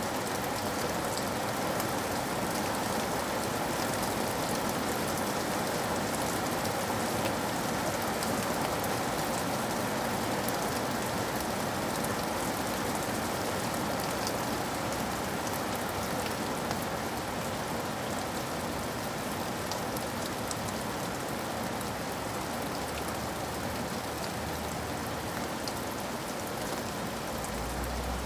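Heavy rain falling steadily on a window pane, a dense even patter with many fine drop ticks. A low rumble comes in near the end.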